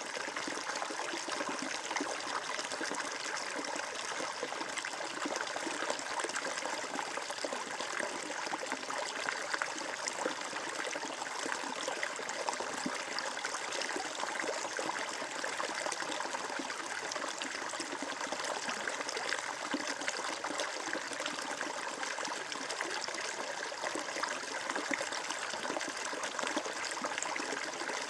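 Flowing water trickling steadily in a stream, an even running sound with fine splashing and little low rumble.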